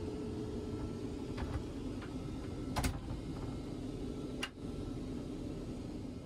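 Steady cabin drone of a Boeing 787 in flight, with a few clicks and knocks as the lavatory door is handled and shut. The loudest knock comes just before halfway, then a sharp click as the door lock is slid.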